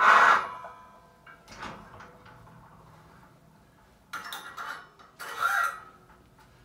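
Iron weight plates scraping along a barbell's sleeve as they are slid off, stripping weight for a drop set. The loudest scrape comes right at the start, with two shorter ones about four and five seconds in.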